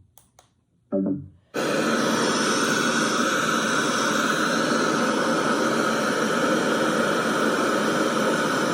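The FM radio of a Bluetooth speaker alarm clock playing loud, steady static hiss through its speaker, starting suddenly about one and a half seconds in. No station is tuned in, and the owner thinks the antenna cord needs to sit higher for reception.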